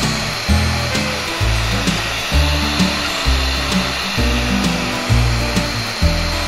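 Hitachi BS30SA hollow-chisel mortiser motor running with a steady rush, over background music with a regular bass beat.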